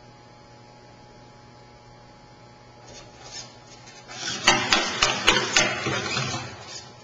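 Genibo robot dog's plastic body and small motors: a faint steady hum, then about four seconds in a burst of rapid clicking and clattering lasting about two seconds.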